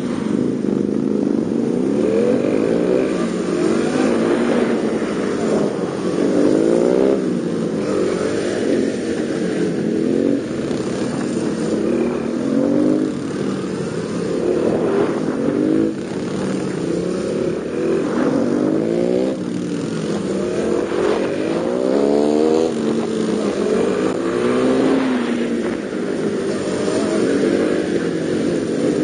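Yamaha Serow 225WE's air-cooled single-cylinder four-stroke engine revving up and easing off again and again, its pitch rising and falling every second or two, as it is ridden through tight low-speed turns.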